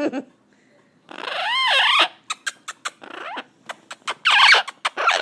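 Pet talking bird vocalizing: a pitched call that rises and falls about a second in, then a run of sharp clicks, then a short raspy sound shortly after four seconds.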